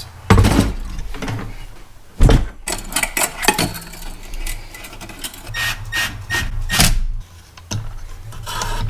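Irregular knocks and clatter of scrap metal pieces being handled and set down on a workbench, with a few sharper clanks.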